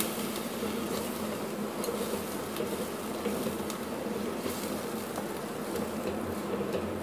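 Blended spinach and chicken sizzling gently in an aluminium pan as a wooden spatula stirs through it, with a few faint taps of the spatula against the pan. A steady buzzing hum runs underneath.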